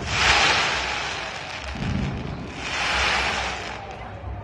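Fireworks going off: a long hissing, crackling burst at the start, a dull low thump about two seconds in, and another long hissing burst about three seconds in.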